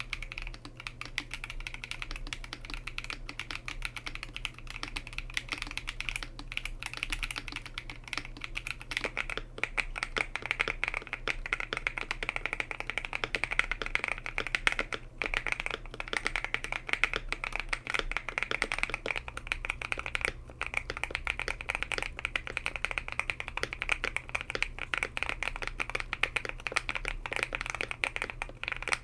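Continuous fast typing on an Epomaker TK68 stacked-acrylic, gasket-mounted mechanical keyboard: a dense stream of keystroke clicks and clacks. A steady low hum runs underneath. The character of the keystrokes shifts a little about nine seconds in.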